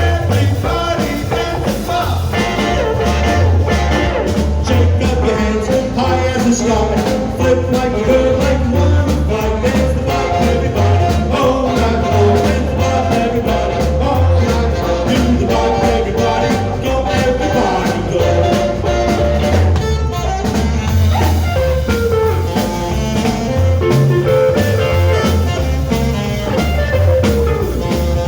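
A live band playing a rock and roll number, with a singer over guitar and a steady, heavy beat.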